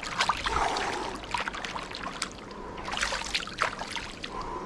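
Swimming-pool water splashing and sloshing in small, irregular splashes as a person wades waist-deep and dips a hand into the water.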